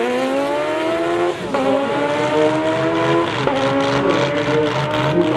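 Twin Suzuki Hayabusa inline-four motorcycle engines of a drag-racing Zastava 750 at full throttle, pitch climbing through the gears with quick upshifts about one and a half and three and a half seconds in.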